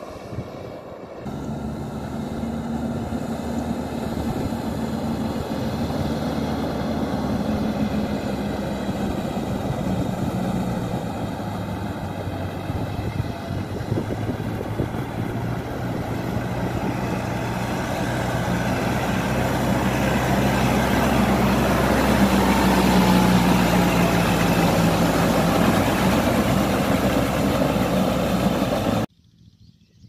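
A tracked farm tractor's diesel engine running under load in a muddy paddy, growing steadily louder as it comes closer. It cuts off suddenly near the end.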